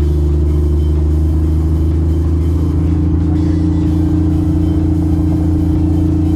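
A 1975 Jeep CJ5's engine running at a steady, low cruising pace, heard from inside the cab as it drives along a trail. Its note dips slightly about halfway through.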